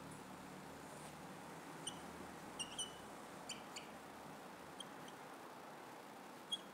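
Whiteboard marker squeaking against the board as it writes: short, high-pitched squeaks, about seven of them at irregular intervals, over faint room hiss.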